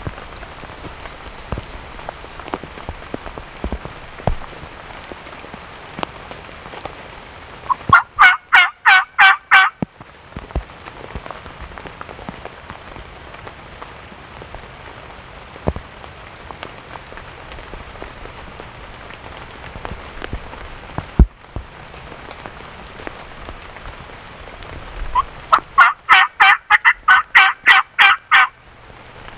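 Two loud runs of rapid turkey yelps, about four notes a second, the first lasting about two seconds and the second, near the end, about three, over steady rain pattering.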